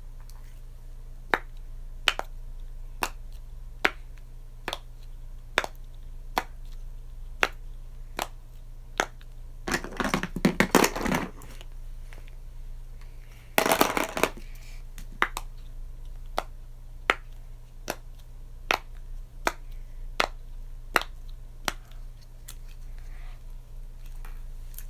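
Poppet fidget toys being popped and snapped together, a sharp click about once a second, with two short flurries of rapid clicks around the middle.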